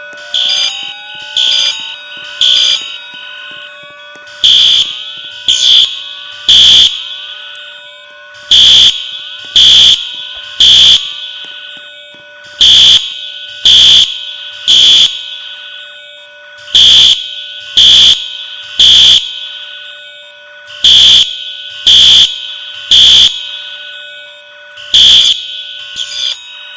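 Fire alarm sounding in the three-beep evacuation pattern: loud, high beeps in groups of three, repeating about every four seconds. Faint rising tones sound under the first several seconds.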